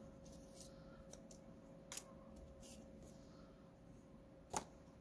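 Faint rustling of small paper pieces being handled and sorted by hand, with two short sharp clicks, about two seconds in and near the end.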